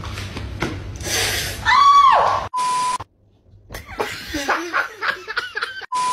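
Short steady beep tones at one pitch mark the cuts between clips, about two and a half seconds in and again near the end. Between them comes a brief cry that falls in pitch about two seconds in, then a person laughing and snickering.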